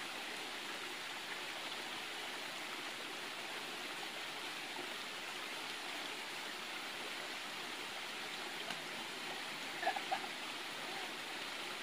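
Steady rushing of flowing water in a forest stream, with two short higher-pitched sounds about ten seconds in.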